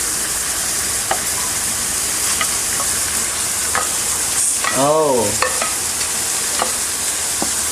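Pork and banana peels sizzling in oil in a hot pan as they are stirred, with a short, light click against the pan every second or so.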